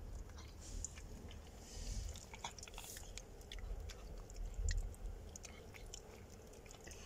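Chihuahua mother licking her newborn puppy: soft, faint wet smacks and clicks from her mouth, over a low rumble of hands handling the puppy.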